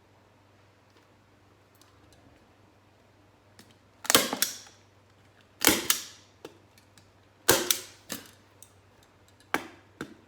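Hand staple gun firing four times, about every one and a half to two seconds, each shot a sharp snap with a short ring and a lighter click after it, driving staples through plastic sheeting into a crate seat.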